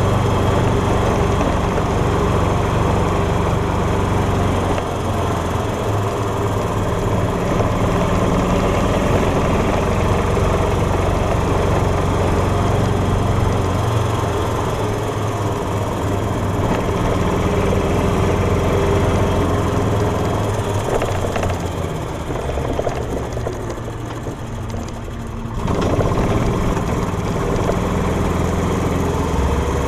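Golf cart driving along with its engine running steadily. The engine sound drops for a few seconds a little past twenty seconds in, then comes back suddenly.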